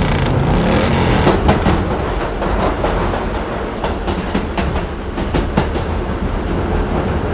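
Train running on rails, its wheels clacking over the rail joints in a steady rhythm from about a second in.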